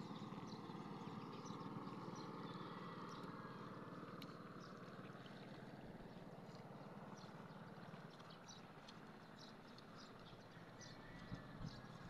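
Faint open-air ambience. A distant motor drone sinks in pitch and fades over the first few seconds, while short high chirps come and go throughout.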